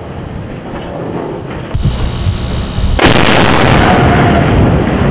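Explosive cutting charges detonating on a steel bridge truss in a controlled demolition. A low rumble comes first, then a sharp crack about 1.7 s in, and about three seconds in a loud blast that carries on as a sustained roar and rumble.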